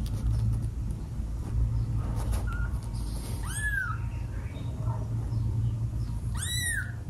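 Newborn kitten crying twice, two short high-pitched mews that rise and fall, over a low steady hum.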